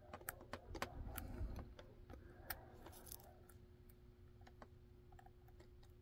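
Faint, irregular metallic clicks and ticks of a lock pick working the pins of a Dom Sigma Plus cylinder under tension, the lock having been raked into a false set. The clicks come thick for about three seconds, then only now and then.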